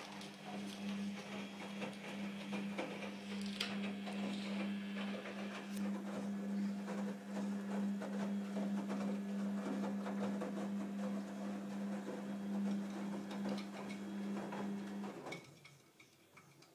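Small electric motor of a toy car running with a steady hum, overlaid by many small clicks and rattles, then cutting off suddenly about fifteen seconds in.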